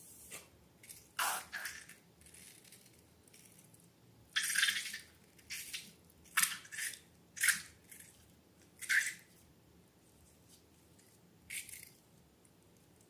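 Slime squishing in a string of short, irregular wet squelches, with a longer one about four and a half seconds in.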